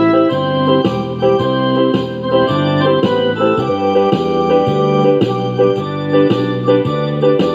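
Instrumental background music on an electronic keyboard with an organ-like sound, playing sustained chords and a melody that change note every fraction of a second.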